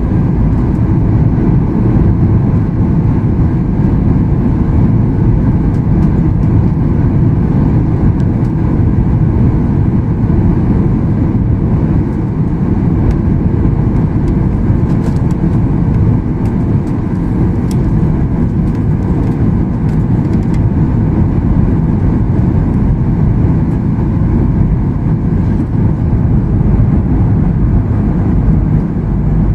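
Steady low rumble and rush of a jet airliner's engines and airflow, heard from inside the passenger cabin during the descent toward landing.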